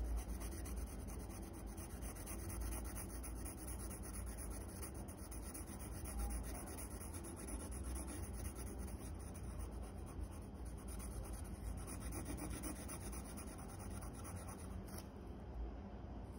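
Graphite pencil scratching on paper in quick, continuous back-and-forth shading strokes.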